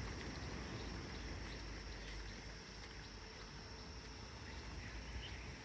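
Quiet outdoor ambience: a faint steady hiss and low rumble, with a few faint short chirps and ticks scattered through.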